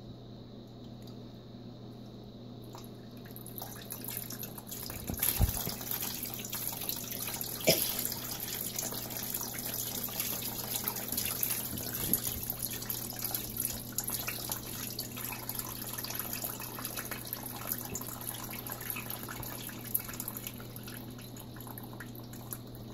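Water splashing, trickling and dripping in a hydrographic dip tank as a BB gun stock is pushed through the printed film and lifted out, over a steady low hum. The splashing starts a few seconds in, with a couple of louder splashes soon after.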